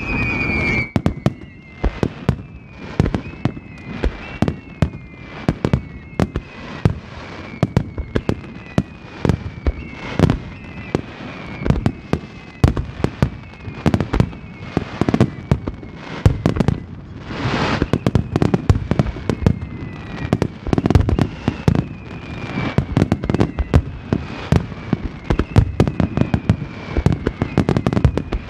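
Fireworks finale barrage: aerial shells bursting in rapid, continuous succession with sharp bangs and crackling. Many whistling effects fall slightly in pitch throughout.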